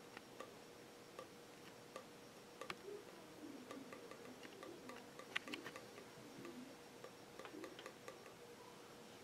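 Near silence: quiet room tone with a faint steady hum and scattered light, irregular ticks and clicks, the sharpest a little over five seconds in.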